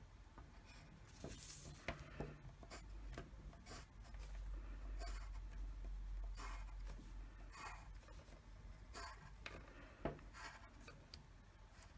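Faint pencil scratching on paper in many short strokes, drawing hatch lines along a plastic ruler, with a few light taps.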